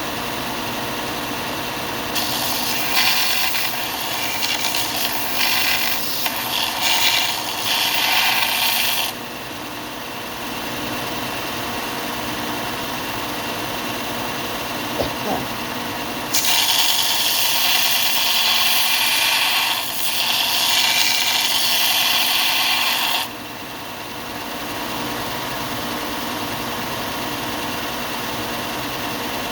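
Belt sander running steadily, with a screwdriver handle pressed against the moving belt twice, each time for about seven seconds, giving a loud sanding noise that stops when the handle is lifted off.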